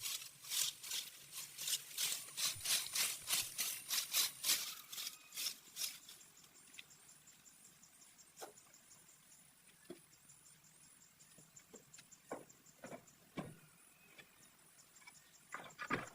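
Rapid rhythmic scraping strokes, about three a second, that stop about six seconds in, followed by scattered light knocks and a faint fast high ticking.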